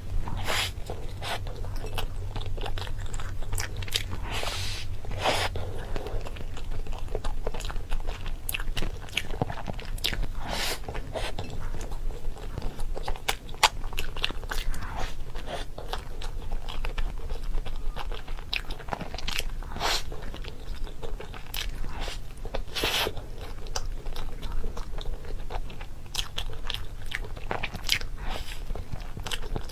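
Someone chewing and biting crunchy food close to the microphone, with many irregular crisp crunches.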